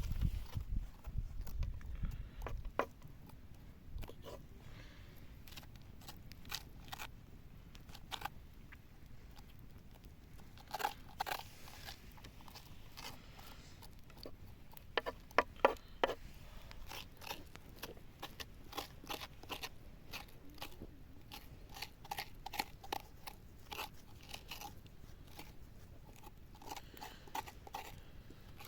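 Irregular crunches and sharp clicks of raw food being cut and handled, with a dense run of them about halfway through and more toward the end. A low rumble is heard in the first few seconds.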